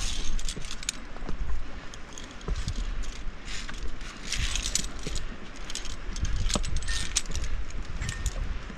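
Metal carabiners and clipping gear on a via ferrata lanyard jangling and clinking against each other and the steel cable as the climber moves, in irregular clusters of sharp clicks. Wind rumbles on the helmet-mounted microphone throughout.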